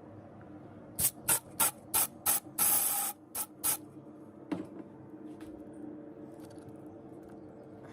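A run of short hissing spray bursts, about seven quick squirts with one longer spray among them, followed a second later by a single knock.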